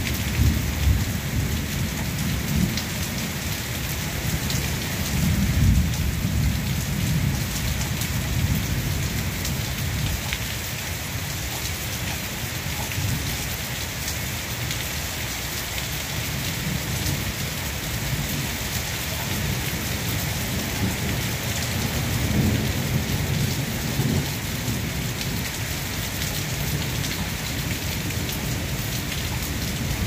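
Steady rain hissing, with low rolling rumbles of thunder that swell in the first several seconds and again a little after twenty seconds in.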